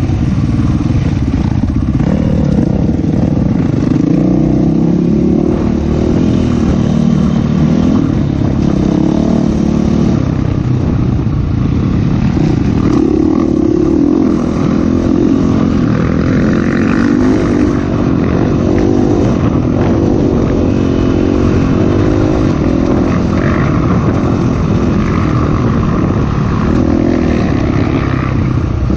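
Dirt bike engine running hard, heard from on board, its pitch rising and falling steadily with throttle and gear changes.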